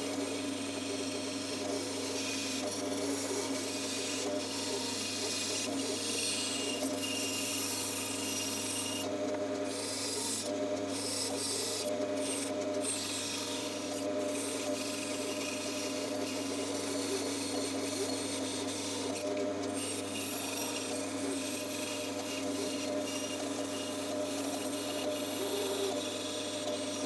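Bandsaw running steadily and cutting a letter shape out of a wooden block: a constant motor hum under the hiss of the blade through the wood. The hiss drops out briefly a few times in the middle as the blade leaves the wood.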